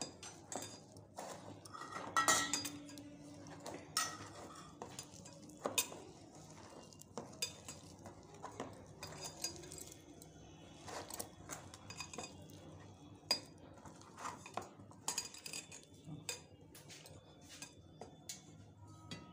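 Hand beating a besan batter in a stainless steel bowl: irregular clinks and taps against the metal bowl, with a louder clatter about two seconds in.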